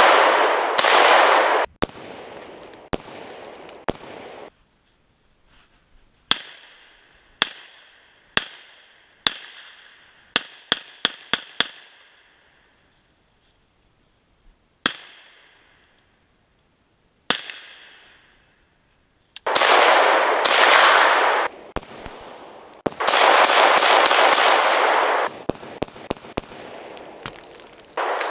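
Semi-automatic 5.45x39mm AK-74-pattern rifle (Arsenal SLR-104FR) being fired. Four single shots come about a second apart, then five in quick succession, then two more a few seconds apart, each crack trailing off in a short echo. Long stretches of loud rushing noise fill the start and the last third.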